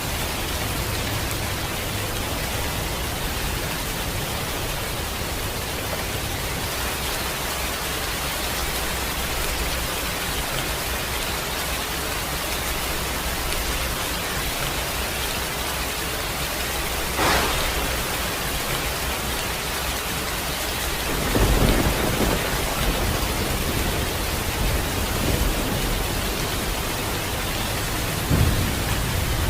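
Steady heavy rain hissing, with thunder: a sharp crack about two-thirds of the way through, then a low rolling rumble a few seconds later and another low thump near the end.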